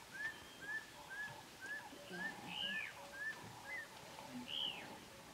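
Wild birds calling: one repeats a short arched note about twice a second, while a louder, higher arched call comes twice over it.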